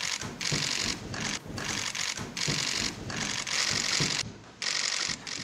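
Press photographers' camera shutters firing in rapid bursts: overlapping runs of fast clicking, each about half a second long, with short gaps between them.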